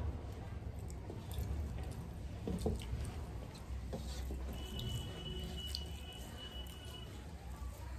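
Eating by hand: fingers squishing and mixing rice with curry on metal plates, with wet mouth clicks and chewing as scattered small smacks.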